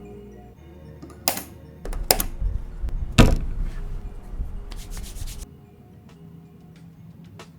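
Hands handling PC components: rubbing and scraping with a few sharp clicks and one loud knock about three seconds in, over soft background music.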